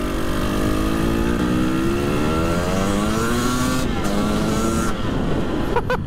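Husqvarna two-stroke motorcycle engine accelerating, its pitch climbing for about four seconds, dropping suddenly at a gear change, then climbing again. The engine is new and being run in.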